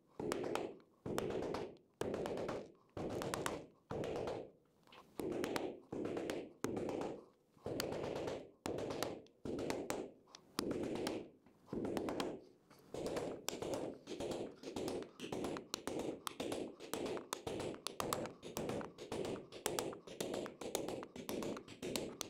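Claw hammer striking an impact socket to drive M6 prong T-nuts into recessed holes in an MDF spoilboard: a regular run of taps, a little over one a second at first, quickening to about three a second about halfway through.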